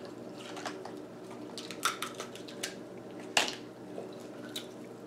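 Cooked lobster claw being cracked and pulled apart by hand: a few scattered sharp, wet clicks and crackles of shell and meat, the loudest about three and a half seconds in, over a steady low hum.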